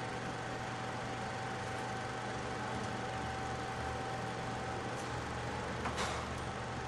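Steady room tone of a quiet cinema hall: an even hiss with a constant low hum and a thin steady tone above it. A faint click comes about five seconds in, and a short sharp noise follows a second later.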